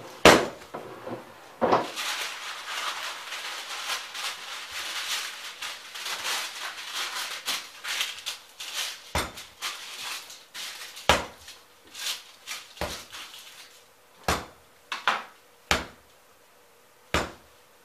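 Focaccia dough being slapped and pressed by hand on a stone countertop: sharp thumps at the start and a string of separate thumps through the second half, with softer rubbing and kneading noise in between.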